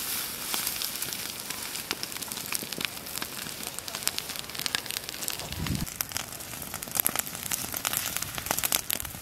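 Dry grass and brush burning, with a steady crackle of many small sharp pops over a hiss. A single dull thud comes just past the middle.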